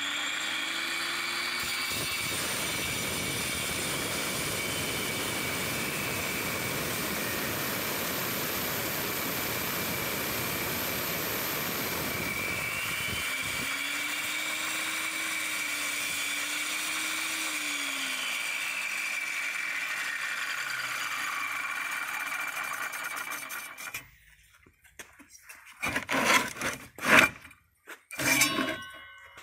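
Angle grinder with a segmented diamond disc, mounted as a pendulum saw, running with a steady whine and cutting through a red brick. It winds down near the end, followed by several loud knocks and clatter.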